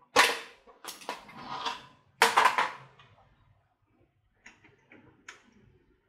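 Several loud knocks and clatters in the first three seconds, the loudest near the start and just after two seconds in, then a few faint light clicks.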